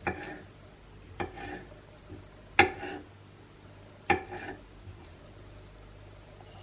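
A cooking utensil knocking against a pot or pan four times, each knock short and ringing, at roughly even intervals over a faint steady background.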